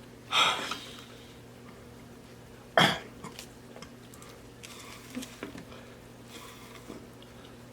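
A man coughs or clears his throat twice: once briefly just after the start, and once sharply about three seconds in. Faint small mouth clicks of eating come in between.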